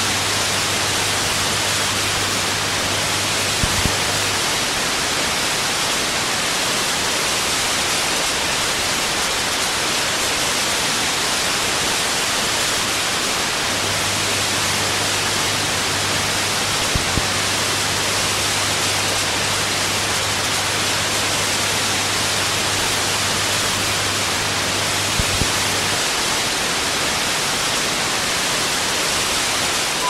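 Analog television static: the steady hiss of a set receiving no signal. A low hum runs under it for the first few seconds, drops out, and comes back from about fourteen seconds in for a while, with a few faint clicks along the way.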